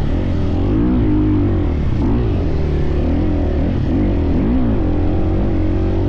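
Husqvarna dirt bike engine revving up and down as the throttle is opened and eased while riding through sand, in repeated swells of pitch.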